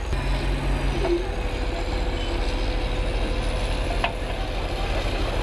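Heavy machinery engines running low and steady: a yellow loader and an orange tipper truck. A single sharp metallic knock comes about four seconds in.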